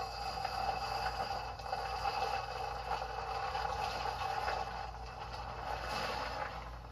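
Thin stream of concentrated sulfuric acid poured from a plastic jug into a glass beaker of liquid, making a steady trickle that trails off near the end as the pour stops.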